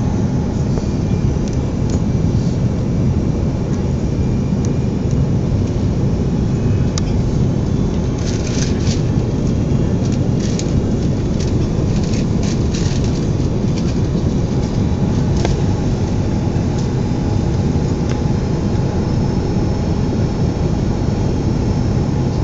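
Steady low roar of an Airbus A330's engines and airflow heard from inside the passenger cabin on the landing approach, with a few faint clicks around the middle.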